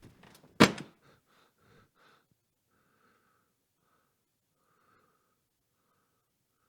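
A sharp thump a little over half a second in, followed by a few quickly fading smaller knocks, then faint, irregular short puffs of sound.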